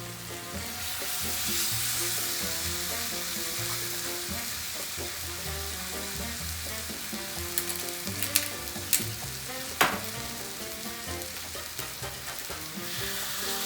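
Chicken pieces sizzling as they brown in a hot frying pan, with a few sharp clicks about eight to ten seconds in.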